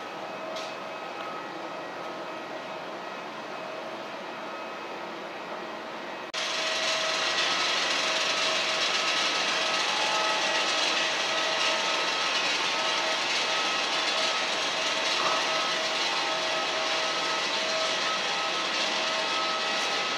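Steady airport-terminal background noise; about six seconds in it jumps abruptly to a much louder, steady rushing hiss that holds on without change.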